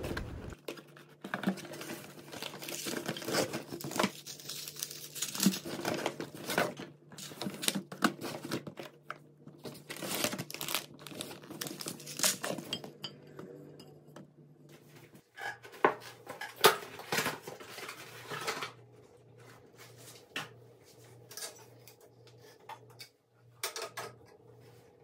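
Plastic packaging and a shopping bag rustling and crinkling as purchases are unpacked, with a few sharp knocks of boxes and packets being set down. The sounds thin out to scattered ticks near the end, over a faint steady hum.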